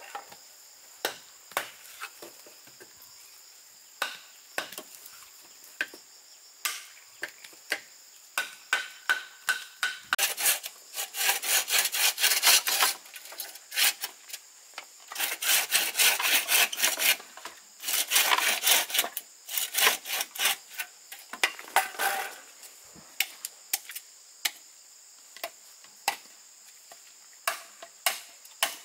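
Bamboo being worked with hand tools: scattered sharp knocks, and in the middle three spells of quick back-and-forth strokes like hand sawing. A steady high insect drone runs underneath.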